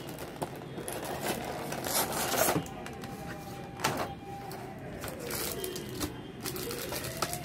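Clear plastic blister tray and cardboard box handled, giving clicks, taps and crinkles, the loudest about two and four seconds in. Behind it a faint wailing tone slides down and back up near the end.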